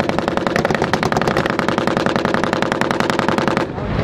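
Sustained machine-gun fire, a rapid even stream of shots at about ten rounds a second, that stops abruptly about three and a half seconds in.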